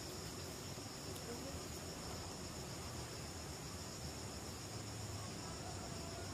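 Insects chirring steadily in high, unbroken tones, over a low rumble.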